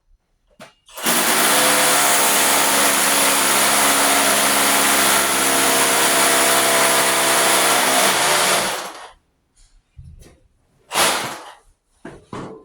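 Hammer drill boring a hole into a concrete floor for a Tapcon anchor screw. It runs steadily for about eight seconds and stops, then gives two short bursts near the end.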